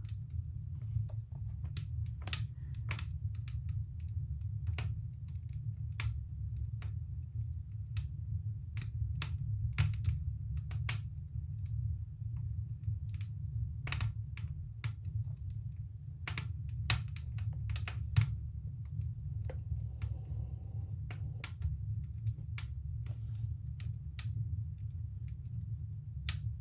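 A freshly lit fire in a fireplace crackling and popping, with sharp irregular pops over a steady low rumble.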